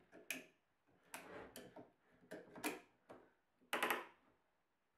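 Ratcheting lever on a bar clamp clicking as its red handle is squeezed to tighten the clamp onto glued pine battens. The clicks come in four short runs, the loudest near the end.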